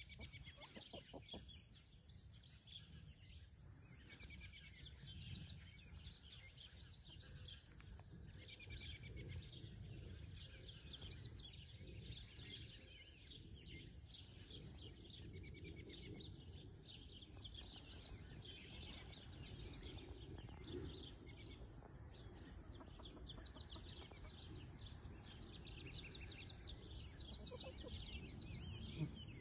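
Faint sounds of a foraging flock of hens: frequent short high chirps and soft low clucks over a low rumble, a little louder near the end.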